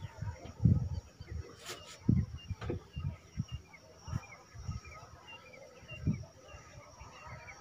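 Dull thumps of hands patting and slapping on a head during a barber's head massage, coming irregularly about one or two a second, with a sharp click a little under two seconds in. Small birds chirp in the background.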